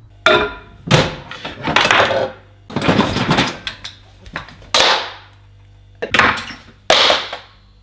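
Kitchen handling noise: cupboard and microwave doors and dishes knocking and clattering in a string of sharp, separate bangs, each a second or so apart.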